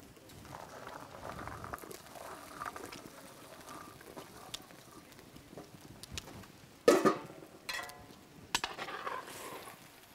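Fish curry with potatoes and peas simmering softly in an iron wok over a wood fire. About seven seconds in, a ladle clanks sharply against the wok with a short metallic ring, followed by two lighter knocks.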